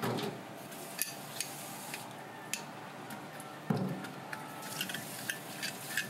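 A toothed scaler scraping the large scales off a whole blue fish on a board in a steel sink: sharp clicks and knocks as the tool catches the scales. There is a heavier thump nearly four seconds in, then quicker clicks, about three a second, near the end.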